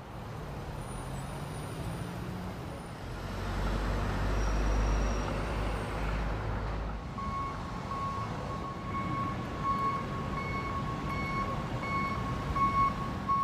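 Heavy construction machinery on a street works site: a diesel engine runs close by with a deep rumble, then about seven seconds in a reversing alarm starts beeping steadily, about three beeps every two seconds.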